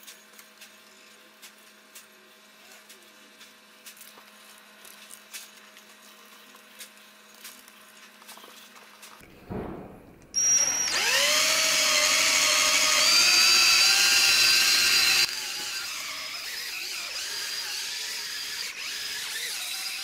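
Electric drill fitted with a foam polishing pad, buffing a painted steel bicycle frame. About halfway through it starts with a rising whine as it spins up and runs loud for about five seconds, then carries on more quietly for the last few seconds. Before it there are only faint scattered ticks.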